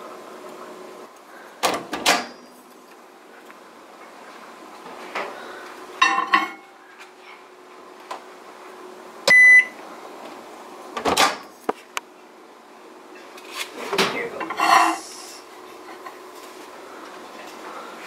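Microwave oven in use: clunks and rattles of its door and a glass bowl, several times, with one loud beep about nine seconds in.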